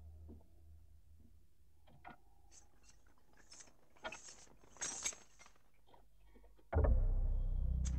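Sparse electroacoustic tape music: scattered small clinks and glassy chinks, with a brief bright hissing swell near the middle. About seven seconds in, a sudden deep low boom starts and rings on, slowly fading.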